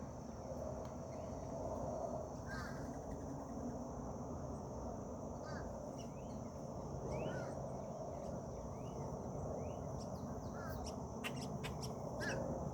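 Birds calling: short rising chirps every second or two over a steady low rumble and a high steady hiss, with a few sharp clicks near the end.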